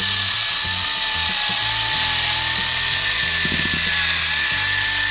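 Worx ZipSnip 4V cordless electric cutter running steadily with a high, even whine as its small rotary blade cuts through ribbed rubber matting with no resistance.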